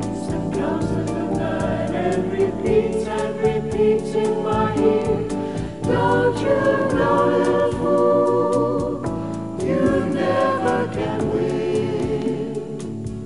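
Easy-listening choral arrangement: a vocal choir singing over an orchestral backing with a steady beat.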